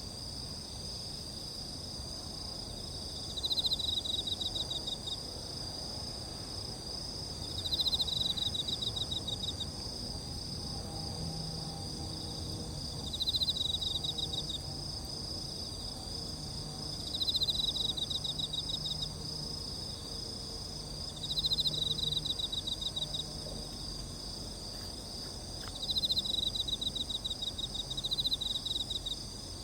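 Crickets and other insects singing in a steady high chorus. One louder insect trills in pulsed bursts of about a second and a half, repeating every four seconds or so.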